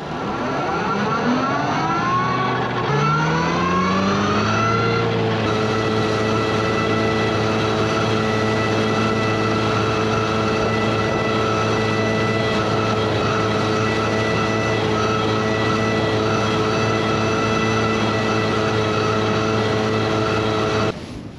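Tractor engine and Claas Disco disc mower-conditioner winding up, the pitch rising over the first five seconds, then running at a steady working speed while cutting lucerne. It cuts off suddenly near the end.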